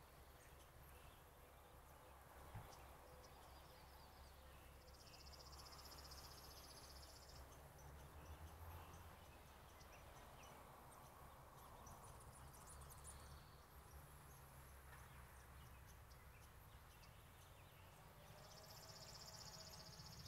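Near silence with faint, slow breaths drawn in through the nose and let out through the mouth. A high buzzy trill sounds twice, about five seconds in and again near the end.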